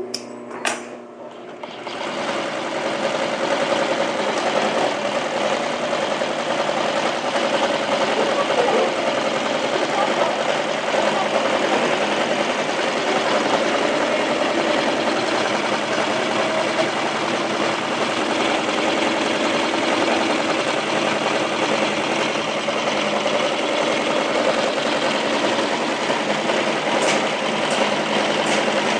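Dürkopp Adler 204-370 heavy-duty triple-feed sewing machine stitching thick lifting-sling webbing, running steadily at speed. A few clicks come in the first second, and the machine starts up about two seconds in.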